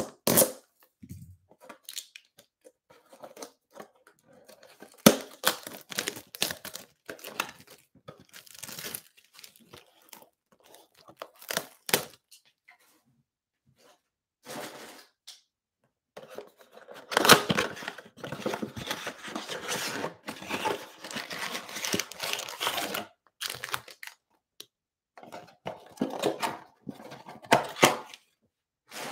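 Plastic shrink wrap slit and torn off a cardboard trading-card box, crinkling and crackling in irregular bursts, densest and loudest a little past halfway, with rustling as the cardboard box is handled and opened.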